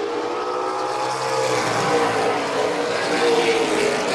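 A pack of late model stock cars racing past, several V8 engines running hard at once, their overlapping engine notes rising and falling.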